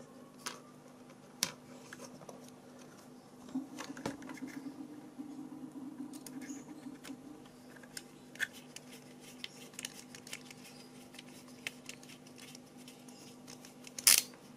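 Faint clicks and light scraping as a tiny screw is driven into a small circuit board with a precision screwdriver and the board is handled, with one sharper, louder click near the end.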